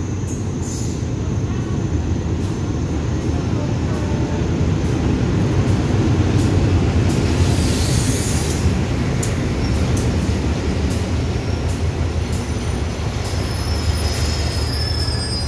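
GE diesel-electric locomotive of the GEA class (CM22-7i) drawing a passenger train slowly into a station, its engine droning loudest as it passes about halfway through. Wheels click over rail joints, and a faint metallic squeal comes near the end as the train slows to stop.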